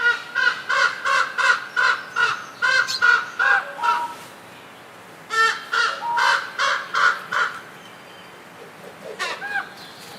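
A bird calling in rapid runs of harsh, repeated calls, about three a second: a long run, a short pause, a second run, then a few fainter calls near the end.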